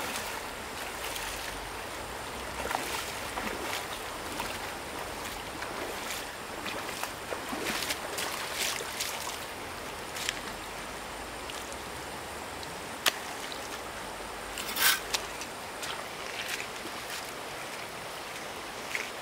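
Running stream water, a steady rushing, with scattered small splashes and knocks. There is a sharp knock about 13 seconds in and a short, louder sound about two seconds later.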